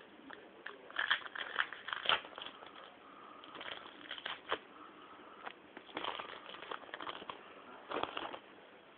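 Handling of a trading card pack: the wrapper crinkling and the cards crackling and clicking as they are handled and flipped through, in four short spells of crackles.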